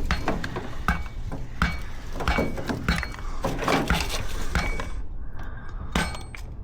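Irregular clinks, clatters and knocks of hard metal and plastic parts of a washing machine being handled and pulled about during dismantling, thinning out after about five seconds.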